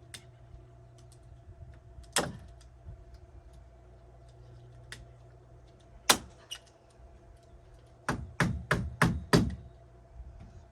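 Sharp knocks from work on the door: one strike about two seconds in, another about six seconds in, then a quick run of five strikes near the end, over a steady low hum.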